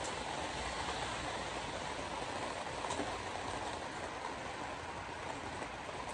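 Steady road noise inside a moving car on a wet road: tyres hissing on wet pavement. Faint ticks come every few seconds as the windshield wiper sweeps.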